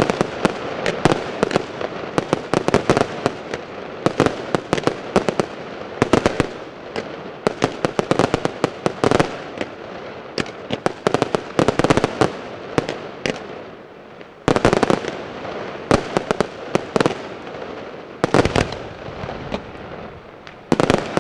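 Aerial fireworks display: a rapid, irregular string of shell bursts and sharp bangs with crackling between them. The bangs thin out briefly past the middle, then strong single bursts resume.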